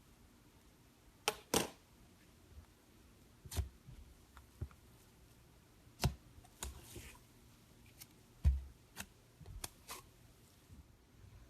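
Clear slime being mixed, heard as about a dozen irregular clicks, taps and small pops, with a short rustling smear about seven seconds in.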